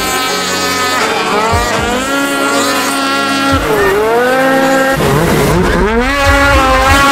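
Snowmobile engines revving hard, the pitch climbing and falling several times as the sleds accelerate across the snow.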